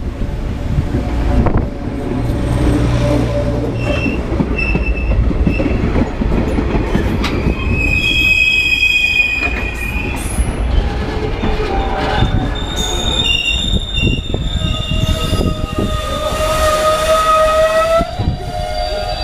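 Electric commuter train pulling into a station platform and slowing, its steel wheels rumbling on the rails. High-pitched metallic squeals come in about halfway through and again, with several held tones, in the last few seconds as it brakes.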